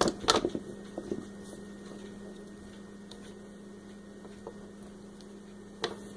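Hands working Play-Doh and small plastic kit pieces: a few quick taps and clicks in the first second, then a steady electrical hum with a single click near the end.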